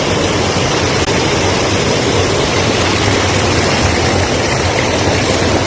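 Waterfall's rushing water: a loud, steady roar of falling water that cuts off suddenly at the end.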